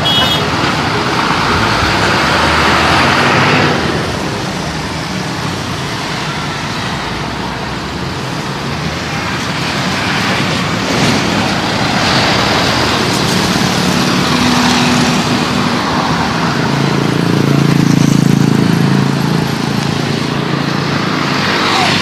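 Road traffic passing close by: a bus rushes past in the first few seconds with engine and tyre noise, then the traffic settles to a quieter rumble. Later a truck goes by and a low engine drone swells near the end.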